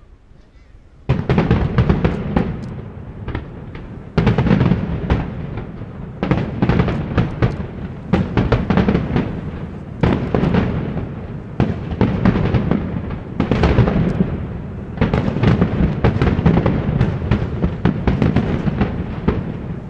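Rapid-fire fireworks barrage: many aerial shells bursting and crackling in quick volleys. It starts suddenly about a second in and comes back in surges every couple of seconds.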